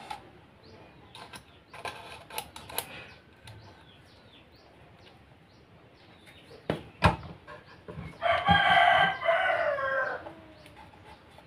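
A rooster crowing once: a single drawn-out crow of about two seconds, starting about eight seconds in and falling away at its end. Shortly before it come two sharp knocks.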